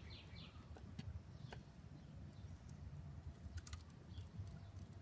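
Faint scraping and a few light clicks and taps of a silicone spatula against a plastic food processor bowl as thick cilantro pesto is scraped out.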